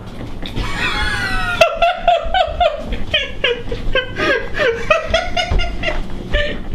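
A person laughing in rapid, high-pitched snickering bursts, several a second, after a drawn-out wavering noise about half a second in.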